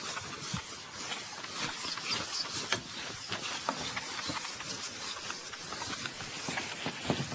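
Soft scratching and tapping of writing by hand in short, irregular strokes, over a steady hiss.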